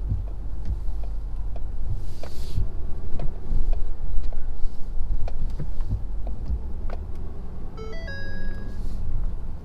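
Cab-interior rumble of a Ford F-250's 6.7 L Power Stroke V8 turbo-diesel working through deep snow, with scattered knocks and rattles. About eight seconds in, a short run of stepped electronic warning tones sounds: the dashboard chime that comes with the low-fuel alert.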